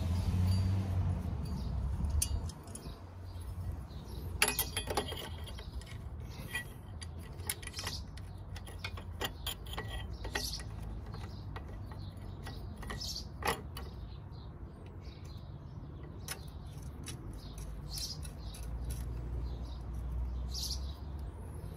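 Metal-on-metal clinks and scrapes as a steel baffle (dB killer) is worked by hand into the outlet of a motorcycle's aftermarket exhaust silencer, in scattered sharp clicks. The sharpest clinks come about four and a half seconds in and again near thirteen and a half seconds.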